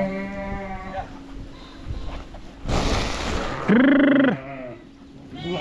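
Sheep bleating: a wavering bleat in the first second, then a louder, shorter bleat about four seconds in. A brief rustling noise comes just before the second bleat.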